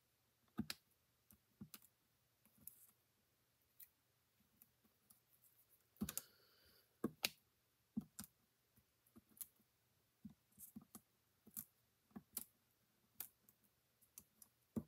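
Faint, scattered clicks and taps of a pick tool and fingertips on cardstock as small foam adhesive dots are pressed onto paper cut-outs, with a brief scratchy paper rustle about six seconds in.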